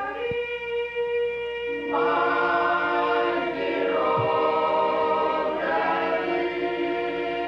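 Men's vocal group singing in close harmony, holding long sustained chords that shift every second or two.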